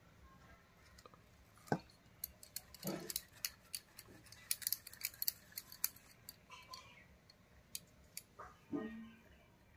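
Quiet hand-work sounds of shaping rice-flour dough over steel ware: a string of light clicks and ticks, which are bangles and fingertips clinking against each other and against a steel bowl and plate. A soft knock comes just under two seconds in, another around three seconds, and another near the end.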